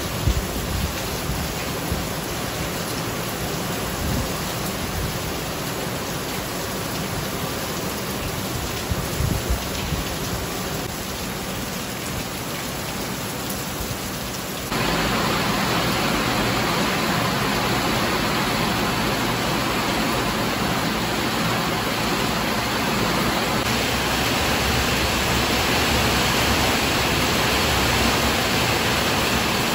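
Heavy rain falling steadily on roofs and pavement, an even hiss. About halfway through it jumps louder and brighter and stays that way.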